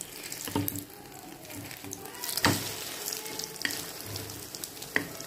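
Egg omelette sizzling in hot oil in a small pan while a spoon stirs and beats it, knocking against the pan a few times, the sharpest knock about halfway through.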